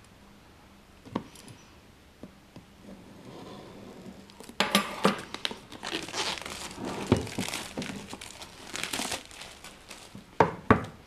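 Clear plastic shrink-wrap torn and crumpled as it is pulled off an iPad mini's cardboard box. The crinkling runs for about five seconds from a little under halfway in, and two sharp knocks follow near the end.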